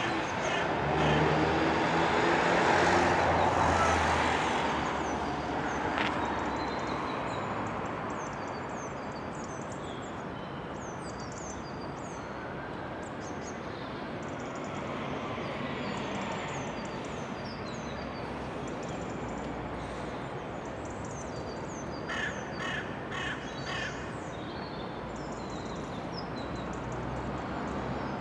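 Open-air railside ambience. A broad rushing noise swells and fades over the first few seconds, then a steady low hum remains. Small birds chirp throughout, and a crow caws several times in quick succession about 22 seconds in.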